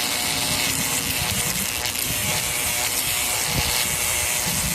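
A steady electric buzzing hiss that cuts off abruptly at the end.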